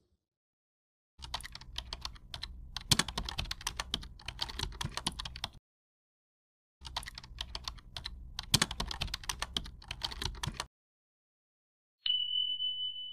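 Keyboard typing sound effect: two runs of rapid key clicks, each about four seconds long, with a pause between them, then one short high beep near the end.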